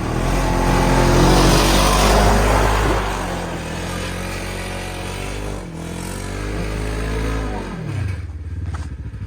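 Polaris RZR 900S side-by-side's twin-cylinder engine running under throttle, then its revs falling away about eight seconds in and settling to an evenly pulsing idle.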